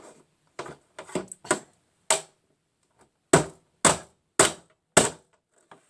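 Hammer striking a plastic mini hockey table, about eight sharp separate blows; the last four are the loudest, coming about half a second apart.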